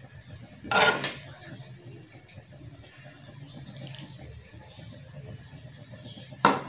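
A serving spoon scraping and clinking against a glass dish as cooked green beans and chicken are spooned in. There is one short loud scrape about a second in and another sharp one near the end, over faint steady background noise.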